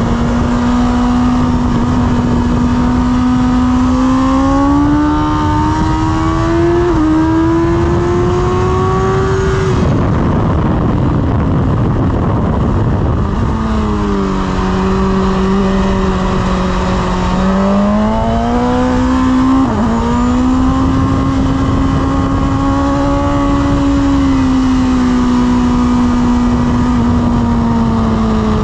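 BMW S1000RR's inline-four engine heard from on board at track speed under heavy wind rush. The note climbs steadily under throttle for about nine seconds, then fades into wind noise with the throttle shut for a corner. It picks up again from lower revs, rises with a brief stutter about twenty seconds in, and eases off slowly near the end.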